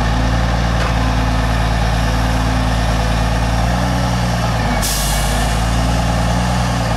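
Kenworth T800 log truck's diesel engine running steadily under load, driving the self-loader's hydraulic crane as it lifts a log; the engine note shifts a little near the middle. About five seconds in, a steady hiss of air starts and keeps going.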